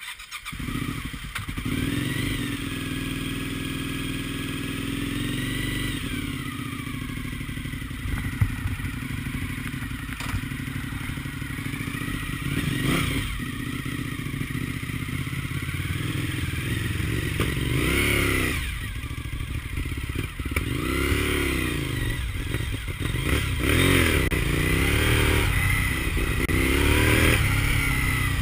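Freshly rebuilt Suzuki TL1000S 90-degree V-twin running, the revs rising and falling again and again as the throttle is opened and closed, more often in the second half as the bike moves off at low speed.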